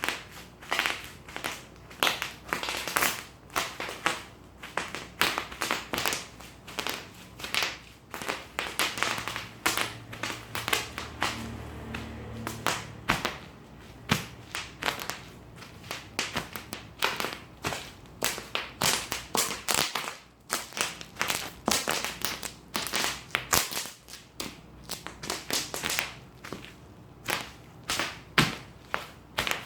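Bubble wrap being popped: sharp, irregular snapping pops, several a second, with a faint low hum for a few seconds near the middle.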